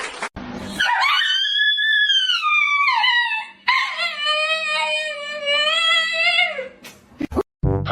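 Dog howling: two long howls, the first rising and then falling in pitch, the second held steadier and lower, followed by a few clicks near the end.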